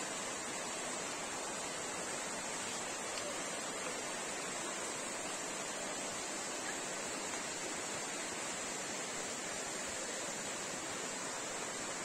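Stream water rushing over rocks, a steady, unbroken wash.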